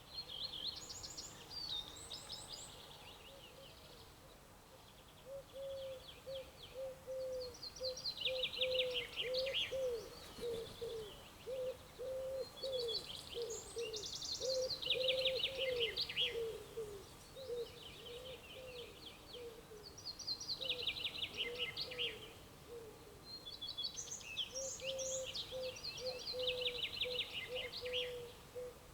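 Songbirds singing outdoors: high, fast trilled phrases repeated every few seconds, over a run of short, low repeated notes that pauses in the middle and resumes near the end.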